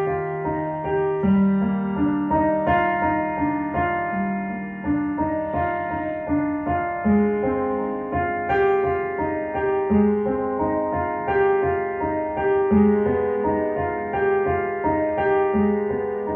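Solo piano played slowly on a digital keyboard: chords and a melody line, each note struck and then ringing as it fades.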